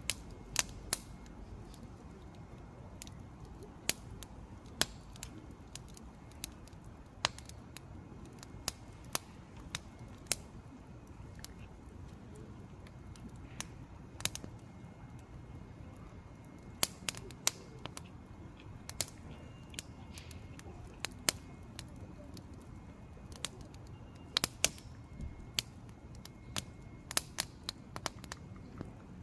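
Wood campfire burning: irregular sharp crackles and pops, a few of them loud, over a soft steady low rumble of the flames.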